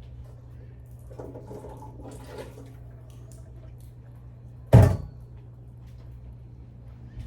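Kitchen handling sounds over a steady low hum: faint clatter and water noise, then one sharp, loud knock a little before five seconds in, from washed cassava being put into a cooking pot of water.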